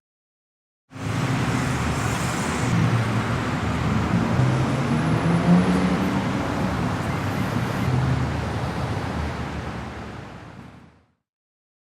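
City road traffic: vehicle engines running amid steady road noise. It starts about a second in and fades out near the end.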